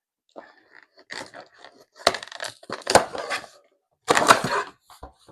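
A cardboard shipping box being opened by hand: irregular crackling and rustling of the cardboard and packing, with a couple of sharp knocks, and the longest, loudest tear about four seconds in.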